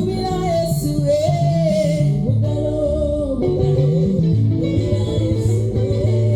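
Seben-style Congolese dance music: plucked guitar melody over a pulsing bass guitar line, with singing.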